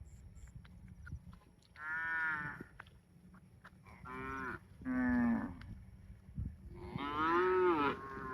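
Cattle mooing: four moos at intervals, the last one the longest and loudest.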